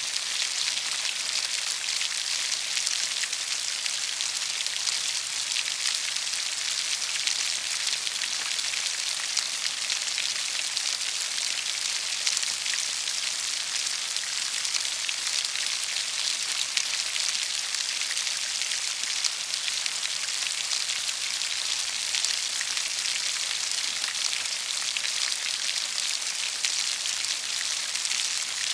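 Steady rain falling, a dense even patter of drops hitting a surface, mostly high hiss with little low rumble.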